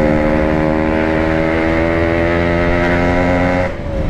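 Yamaha RX King single-cylinder two-stroke motorcycle engine running at a steady speed through its aftermarket exhaust, held at one pitch; the engine is being run in after a rebuild, so it is kept off full throttle. Near the end the engine note drops away as the throttle is closed.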